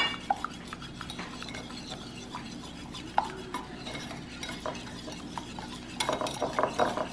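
A utensil stirring rice-flour and coconut-milk batter in a bowl: soft scraping with scattered light clicks against the bowl, busier about six seconds in. A sharp click comes right at the start.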